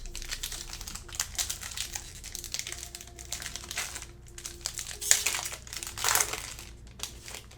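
Crinkling of a foil trading-card pack wrapper and cards being handled, an irregular crackle with louder rustles about five and six seconds in.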